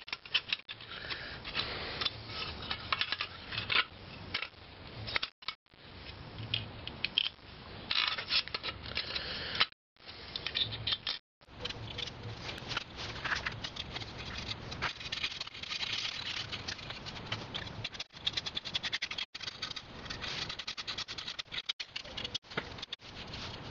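Handling noise from reassembling an alternator: irregular clicks, scrapes and light rattles as the rear cover is fitted back on by hand. Near the end a screwdriver drives in a screw.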